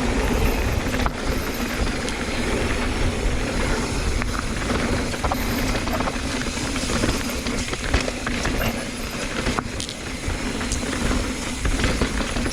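Mountain bike riding fast down a rough downhill trail: steady wind rush and tyre rumble on dirt and rock, with frequent sharp rattles and knocks from the bike over the bumps.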